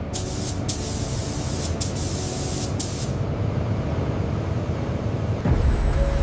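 Spray hissing in spurts broken by short pauses, stopping about three seconds in, over a low rumble. Music comes in near the end.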